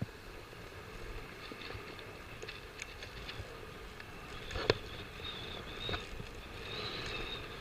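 Faint street traffic noise, with two sharp clicks about four and a half and six seconds in.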